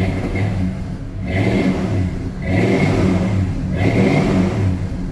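1976 Lincoln Continental Mark IV V8 running through new Magnaflow Rumble mufflers: a steady idle blipped three times, each rev rising and falling back within about a second.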